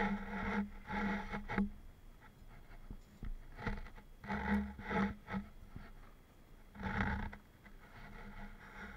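Scraping and rustling as a plastic motorcycle seat cover and a plastic oil bottle are handled, mixed with jacket fabric rubbing. The sounds come in about four short bursts with pauses between them.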